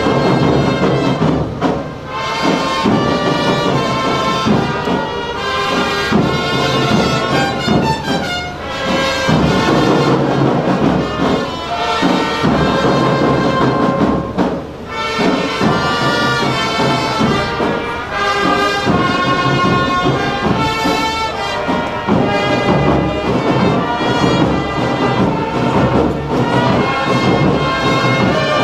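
Instrumental music with brass instruments playing sustained chords and melody.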